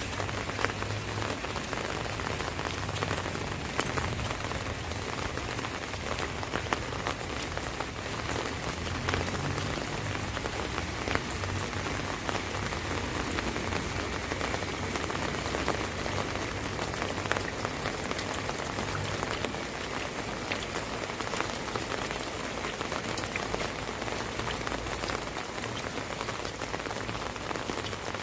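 Steady rain falling on an umbrella overhead: a dense, even hiss of drops with frequent sharper single drop hits.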